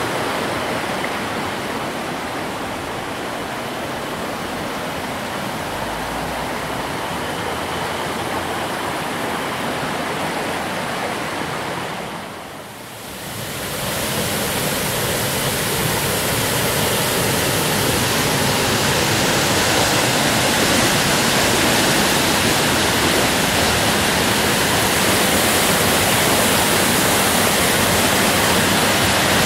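Rushing water of a mountain stream flowing over rapids, a steady even rush. It dips for about a second near the middle, then comes back louder and brighter.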